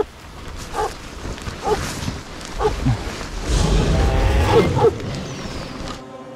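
Dogs giving a series of short, excited yelps and whines as they set off at a run, the loudest about four to five seconds in, over a low rumbling noise of movement. Music with steady held tones takes over about six seconds in.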